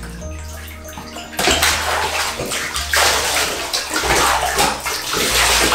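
Water splashing and pouring in a bathtub as a French bulldog is washed, getting loud about a second and a half in, over a steady low hum.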